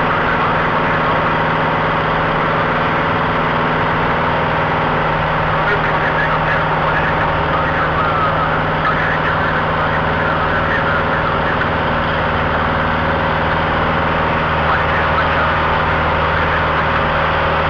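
Light single-engine airplane's piston engine and propeller running steadily in flight, heard from inside the cabin with a constant hum and rushing air.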